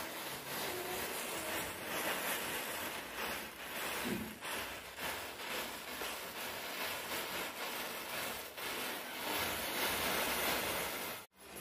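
Hundreds of matchsticks burning in a chain: a steady hiss of flame with dense fine crackling, like rain on a surface. The sound cuts out abruptly for an instant near the end.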